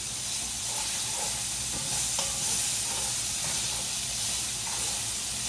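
Minced garlic and diced onions sizzling steadily in freshly melted butter and oil in a skillet, with a utensil stirring and scraping the pan a few times.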